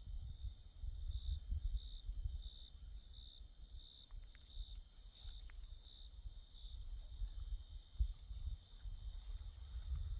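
Night insects, crickets, chirping: a regular chirp repeating about one and a half times a second over a fast, high-pitched pulsing trill, with a low rumble underneath.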